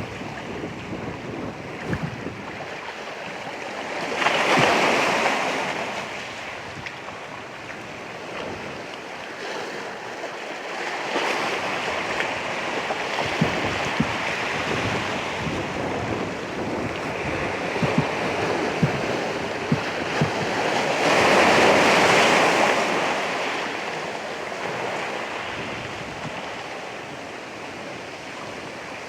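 Ocean surf: waves breaking and washing in, in slow swells. One surge comes about four seconds in, and the loudest a little over twenty seconds in.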